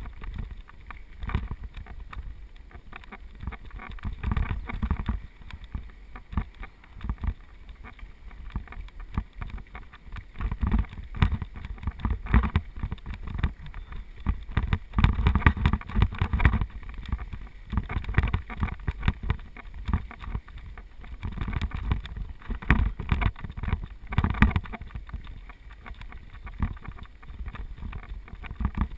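Mountain bike running fast downhill on a dirt track: wind rumbling on the microphone, tyres on loose gravel, and the bike rattling over bumps in uneven surges.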